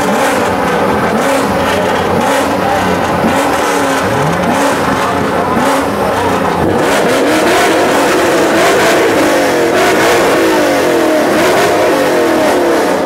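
Car engines revving over and over, their pitch climbing and dropping, with more than one engine overlapping. In the second half comes a quick run of repeated up-and-down rev blips.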